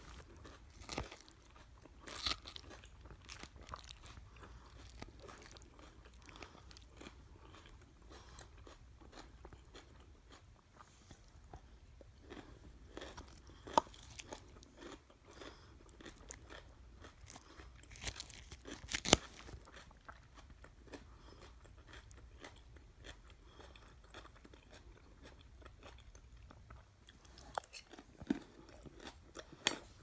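Close-miked chewing and crunching of a raw salad of lettuce, red cabbage and shredded carrot, a steady run of wet crunches. A few sharp, louder clicks stand out, the loudest about two-thirds of the way through.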